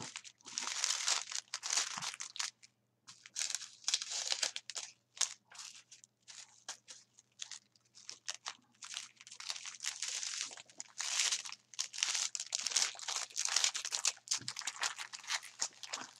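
Small plastic bags of diamond painting drills crinkling as they are gathered, stacked and pushed back into their clear plastic packet, in irregular bursts with short pauses.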